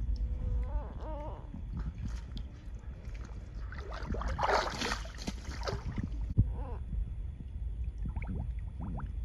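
Pool water sloshing and splashing around swimming beavers, under a steady low muffled rumble as the camera dips into the water. A louder burst of splashing comes about four to six seconds in, followed by a single sharp knock.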